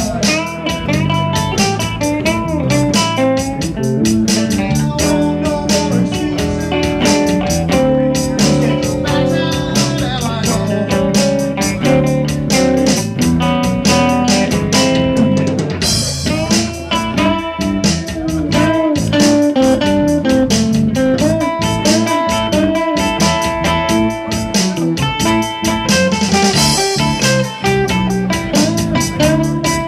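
Live band playing an instrumental passage with no singing: electric guitar and bass guitar over a steady drum beat. Bright cymbal washes come in about halfway through and again near the end.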